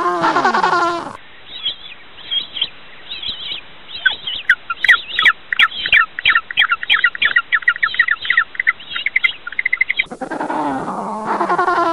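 A penguin's loud braying call with falling pitch in the first second. It cuts off abruptly into a long run of many quick, high chirps and squeaks that grow dense through the middle, and near the end the braying call starts again.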